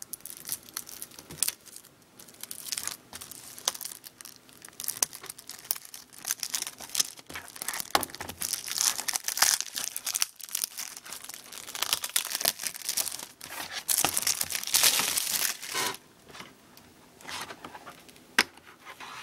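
Plastic shrink-wrap being torn and crumpled off a DVD box set: irregular crinkling and crackling, with louder spells about halfway through and again near three-quarters of the way in.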